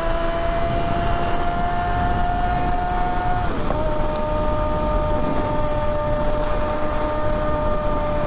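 Sport motorcycle engine running at steady highway speed, heard from on the bike with wind rushing over the microphone. Its note creeps slowly upward, dips sharply about three and a half seconds in, then settles at a slightly lower pitch.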